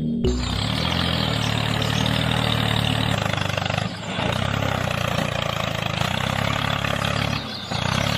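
A tractor-type engine idling steadily, with its sound dropping briefly twice, about four seconds in and again near the end.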